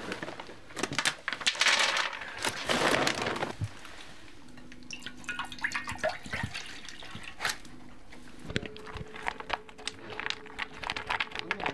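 Water poured from a plastic bottle into an enamel bowl, and a dog crunching dry kibble, a run of quick irregular clicks in the last few seconds.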